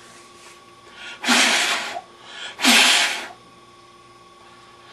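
Two short, sharp bursts of breath from a person, about a second and a half apart, each a loud hiss lasting under a second.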